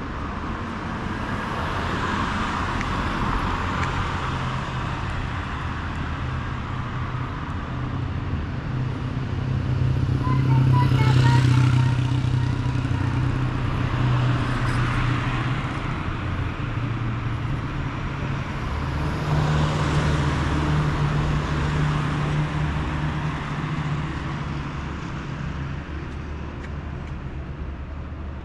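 Street traffic: motor vehicles passing close by over a steady engine hum, loudest about eleven seconds in and again around twenty seconds.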